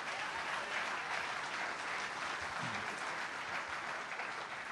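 Audience applauding, steady throughout and easing off near the end.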